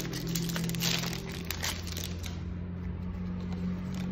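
Foil wrapper of a Magic: The Gathering draft booster pack crinkling as the torn pack is handled and the cards are pulled out, dying down a little over halfway through.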